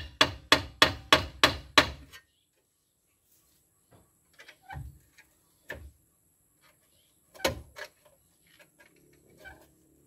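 Quick run of hammer blows on a Toyota Land Cruiser BJ60's rear brake drum, about three a second, stopping about two seconds in. A few scattered knocks and clinks follow. The blows are meant to free a drum brake that has seized.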